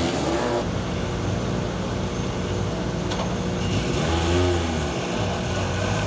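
Rally car engines idling, with a brief swell in engine sound about four seconds in.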